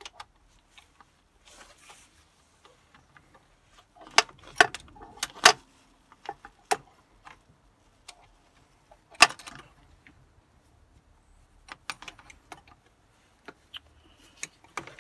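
Scattered metallic clicks and clinks as a BMW M57 diesel engine, timing chain and camshafts exposed, is slowly turned over by hand. There is a cluster of clicks a few seconds in and a sharp single click about nine seconds in.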